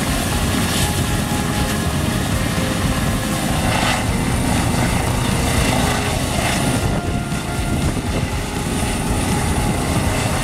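Air-ambulance helicopter with a fenestron tail rotor running on the ground: a steady turbine sound with the fast chop of the turning main rotor.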